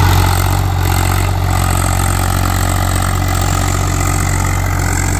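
Swaraj 843 XM four-wheel-drive tractor's three-cylinder diesel engine running steadily under load, pulling a heavy disc harrow through hard, dry soil.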